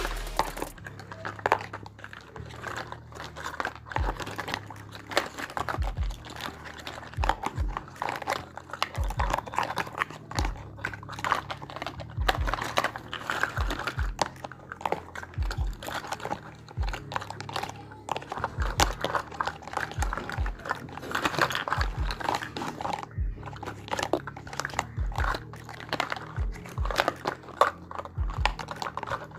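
Miniature toy kitchen pieces and their packaging being handled: irregular small clicks and taps as pieces are picked up and set down, with crinkling and rustling of wrapping and occasional dull thumps.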